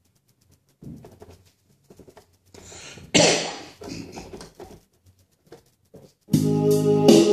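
Korg keyboard being set up: scattered clicks of its panel buttons and a loud burst about three seconds in that fades quickly. About six seconds in the keyboard starts playing music, with organ-like sustained tones.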